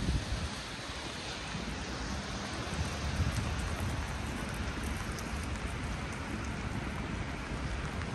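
Steady rain falling, an even hiss with a few faint drop ticks about halfway through and a low rumble underneath.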